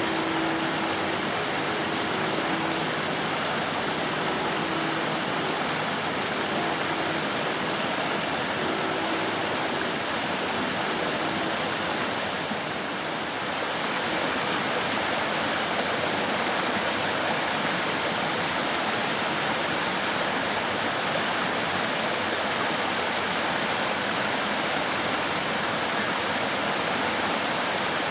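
Water running down a watermill's wooden flume, a steady, continuous rushing.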